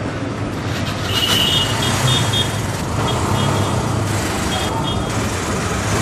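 Busy street traffic, with auto-rickshaw engines running and a steady low hum. Short high-pitched horn beeps sound several times between about one and two and a half seconds in, and again near five seconds.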